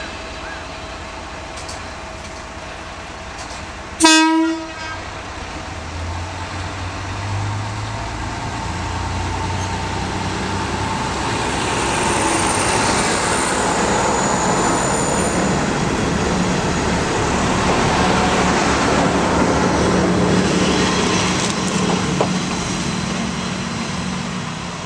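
Kanto Railway KiHa 350 diesel railcar giving one short, loud horn blast about four seconds in, then pulling away under power. Its DMH17 diesel engine and running noise grow louder as the car passes close by, then fade as it draws away near the end.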